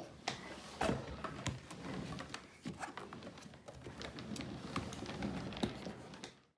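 Scattered light taps and knocks of small hands on a plastic sit-and-spin toy, with faint rustling of movement; the sound cuts off suddenly near the end.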